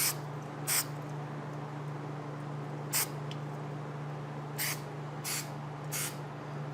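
Aerosol can of 3M Super 77 spray adhesive giving about six short hissing spurts, spaced irregularly, over a steady low hum.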